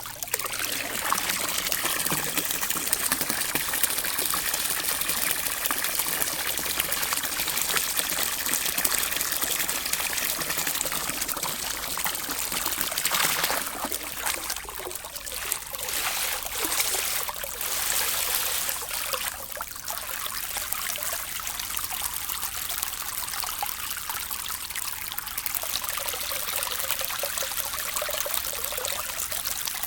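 Water trickling and rippling: a continuous splashing rush, with a few brief surges around the middle.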